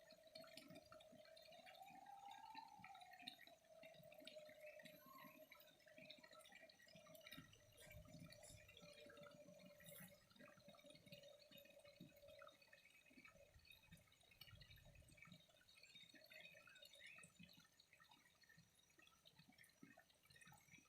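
Faint trickling and dripping of flowing water. A steady hum rises in pitch and falls back about two seconds in, then fades out about halfway through.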